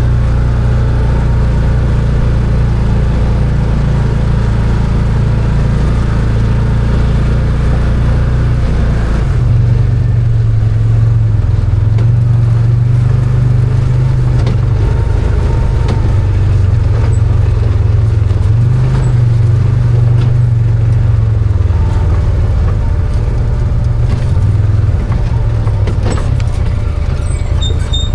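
Arctic Cat Wildcat 1000 side-by-side's V-twin engine running under load on a trail. Its note rises and falls with the throttle, and the tone shifts about nine seconds in.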